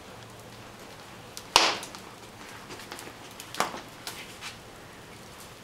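Wood fire burning in an open fireplace, crackling with small ticks and two sharp loud pops, the first about a second and a half in and the second about two seconds later.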